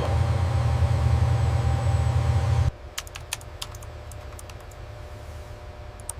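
Loud, steady mechanical rumble that cuts off abruptly between two and three seconds in, followed by a quieter stretch of irregular sharp clicks.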